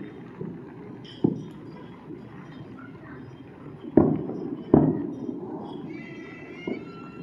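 Neighbourhood consumer fireworks going off: four sharp bangs, each trailing off briefly. The two loudest come close together about four and five seconds in.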